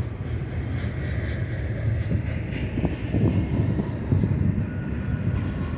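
Double-stack intermodal well cars rolling past: a steady rumble of steel wheels on rail, with a couple of short knocks about three seconds in.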